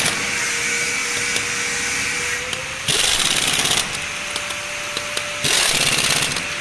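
A power tool run in short bursts of about a second each, twice, with a steady whine between the bursts.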